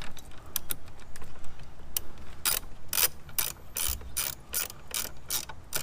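Hand ratchet clicking while backing out a T30 Torx screw. The clicks come sparsely at first, then settle into a steady run of about three a second.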